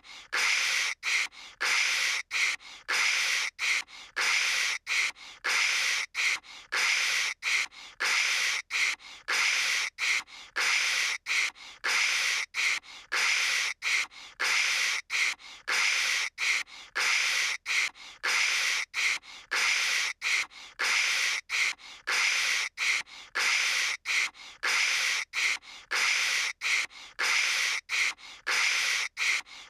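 A cartoon girl's voice imitating phone-line static with her mouth: a long run of short hissing "kshh" bursts in quick succession, broken by brief gaps.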